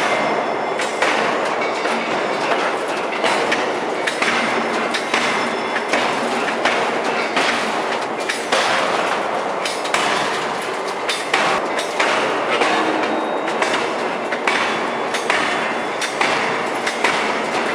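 Open-die forging hammer striking a red-hot nickel-alloy bar in a run of repeated heavy blows, roughly one a second and unevenly spaced, over a loud steady machine din.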